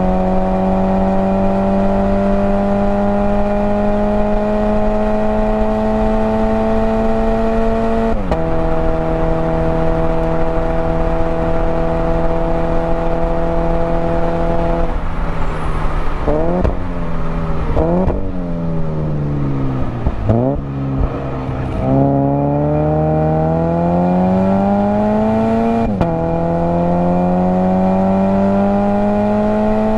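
Toyota GT86's 2.0-litre flat-four heard from inside the cabin under hard acceleration, the revs climbing steadily with an automatic upshift about eight seconds in. Past the middle it brakes and shifts down, with several quick rev spikes, then pulls up through the revs again with another upshift near the end.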